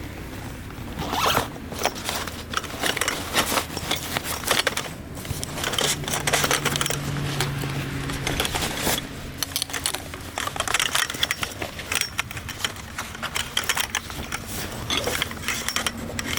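Zipping and rustling: rapid, irregular scratchy strokes, typical of zips and fabric or bags being handled while gear is unpacked.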